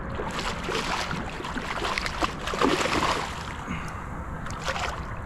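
Water splashing and churning beside a kayak as a hooked black drum thrashes at the surface, heaviest over the first three seconds or so and then easing off.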